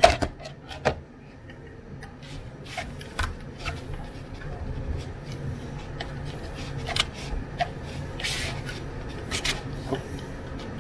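Small screwdriver turning out the screws of a plastic AEG 18 V power-tool battery pack, with scattered clicks and scraping as the hard plastic case is handled. A sharp click comes right at the start, and a brief scrape about eight seconds in.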